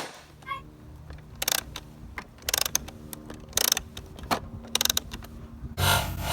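Toys being handled, with short bursts of clicking and rattling about once a second, and a louder buzzing sound lasting about a second near the end.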